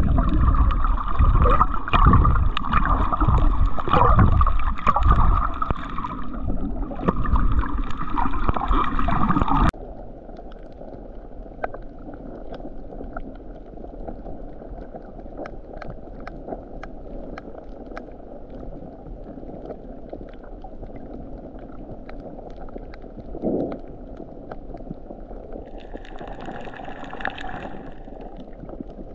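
Underwater sound heard through a camera housing. For about the first ten seconds there is loud sloshing and gurgling with a steady droning hum. It then cuts abruptly to quieter underwater hiss scattered with faint clicks, and the hum returns faintly near the end.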